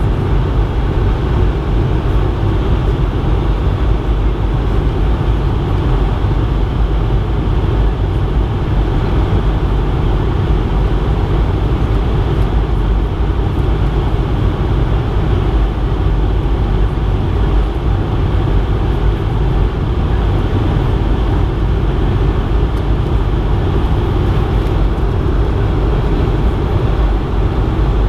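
Steady cabin noise of a Bombardier CS100 (Airbus A220-100) airliner in flight: a constant loud rush of airflow and geared-turbofan engine noise with a deep rumble underneath and a faint steady hum.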